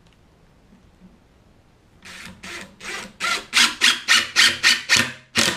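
Cordless driver driving a screw into wood in a quick run of short trigger pulses, about three a second, growing louder; it starts about two seconds in.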